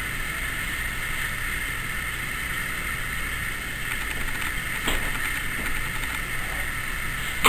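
Steady mechanical hum and hiss, with a couple of faint clicks about four to five seconds in.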